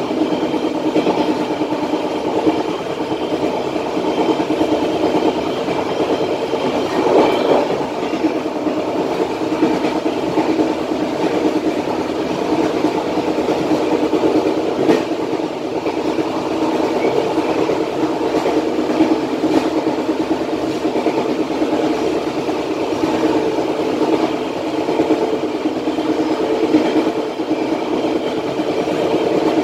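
Passenger train running along the track at about 77 km/h, heard from the rear end of the last coach: a steady noise of steel wheels on the rails, with a few faint clicks.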